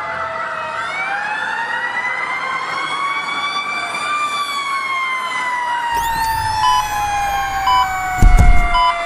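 Emergency-vehicle siren wailing: several pitched tones slowly rise and fall, overlapping one another. About six seconds in, a low rumble joins with a short beep about once a second, and a loud low blast comes near the end.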